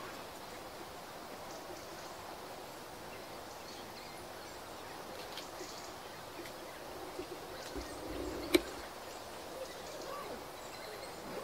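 Steady outdoor background noise with a few faint short chirps, and one sharp click about eight and a half seconds in.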